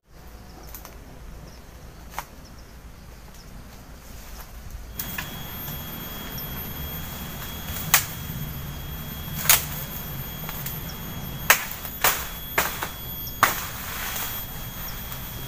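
Woody brush being cleared by a man working through undergrowth. In the second half come about six sharp cracks as stems are broken off.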